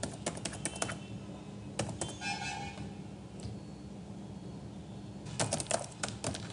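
Computer keyboard typing in a few quick bursts of key clicks, the last and busiest burst near the end as a password is entered.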